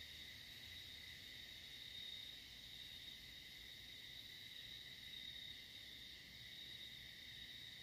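Faint, steady chorus of insects: a continuous high-pitched trill that holds unbroken with no separate calls.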